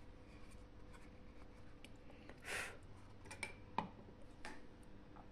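Faint handling of a plastic wireless mouse: a few small clicks, a short rustle about two and a half seconds in, and a sharper click near four seconds.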